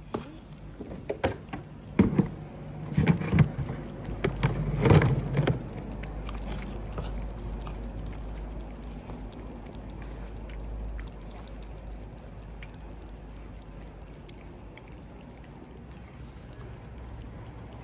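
Plastic food trays set down and handled on a stone step, a run of clatters and knocks in the first six seconds. After that, a steady low rumble with faint small clicks as cats eat wet food close by.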